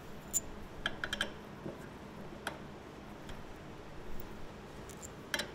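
A few sharp metallic clicks and light taps from hand tools and suspension parts being handled and fitted, including a quick run of about four clicks about a second in.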